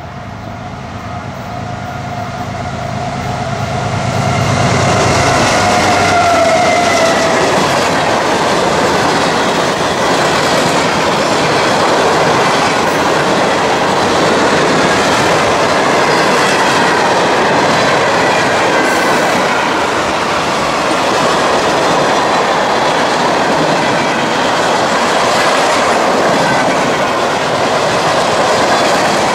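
A diesel-hauled CSX manifest freight train passing close by: the locomotives' engine drone grows louder over the first few seconds as they arrive. Then comes the steady rumble and clickety-clack of freight cars rolling past.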